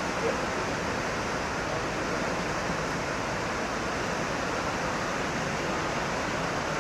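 Steady rush of fast-flowing water, a mountain stream or waterfall, at an even level.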